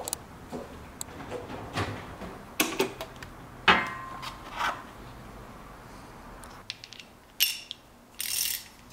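Steel sockets being picked out of a socket tray and fitted to a ratchet: a string of sharp metal clinks and knocks, the loudest about four seconds in, with a short rattling burst near the end.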